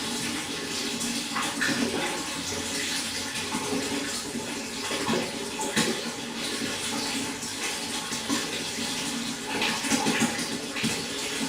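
Water running and splashing steadily into a pond, with a few slightly louder splashes now and then.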